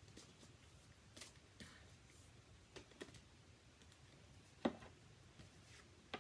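Faint clicks and flicks of a deck of tarot cards being shuffled by hand, a few light snaps scattered through, the sharpest about three-quarters of the way through.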